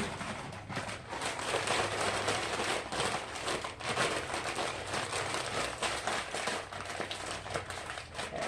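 Continuous crackling and crinkling of a plastic bag of frozen vegetables being worked by hand to break the frozen pieces apart.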